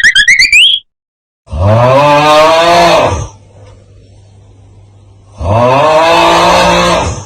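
Two long, loud moo-like calls, each just under two seconds and rising slightly in pitch before holding steady, with a faint low hum between them. At the very start, the tail of a fast rising boing sound effect.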